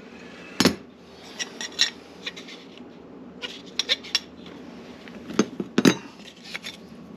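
Scattered metal clinks and knocks from garbage disposal mounting hardware, the sink flange and its rings, being handled and set down. There are about a dozen irregular hits; the loudest come a little under a second in and near the end.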